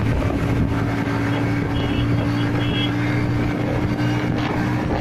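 Steady drone of a vehicle's engine and tyres at constant cruising speed, with a low, unchanging hum and road noise.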